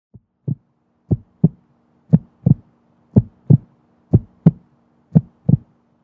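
Heartbeat sound effect: deep double thumps, lub-dub, about one pair a second, over a faint steady hum.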